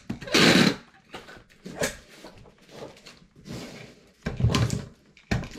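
Packing tape being pulled off a handheld tape-gun dispenser and pressed onto a cardboard shipping box: a loud pull about half a second in, then several shorter pulls and handling noises, with a heavier knock against the box near the end.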